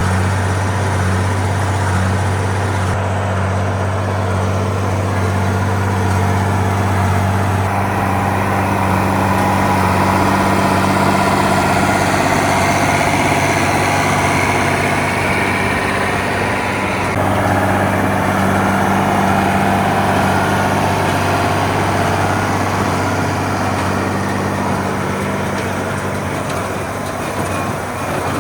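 Tractor engine running steadily under load during straw baling, a constant low hum, with sudden changes in tone about 3, 8 and 17 seconds in.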